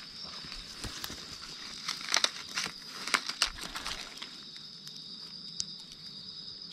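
Dry leaf litter on the forest floor crackling and crunching in a few sharp bursts, mostly about two to three and a half seconds in, over a steady high-pitched drone.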